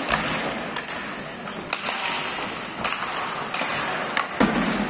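Ice hockey play sounds: skate blades scraping the ice, with sharp clacks of sticks and puck several times and a heavier thud against the boards near the end.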